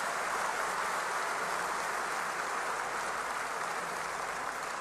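Large audience applauding, a dense steady clapping that tapers off slightly near the end.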